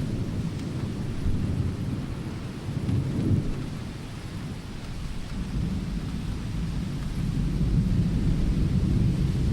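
Thunder rumbling over steady rain. The rumble swells about three seconds in, eases, then builds again near the end.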